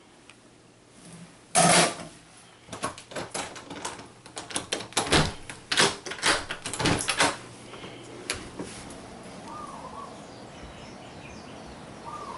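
A loud knock, then a run of clicks and knocks as an exterior door is unlatched by its knob and opened. After that comes a steady outdoor background with a couple of faint chirps.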